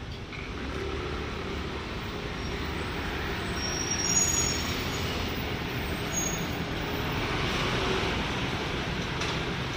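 Steady road traffic noise with a low rumble of passing vehicles.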